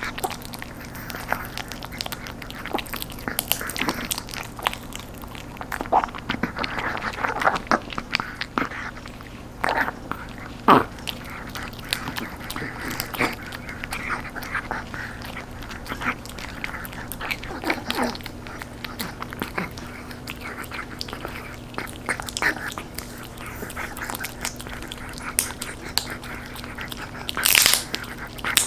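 A chihuahua gnawing a crisp, dried duck knee-joint treat: irregular crunching and cracking bites and clicks of teeth on the bone, with a louder crunch near the end.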